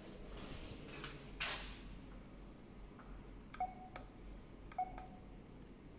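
Fingerprint and keypad attendance terminal giving two short beeps about a second apart, each with a click. A brief rustle comes before them.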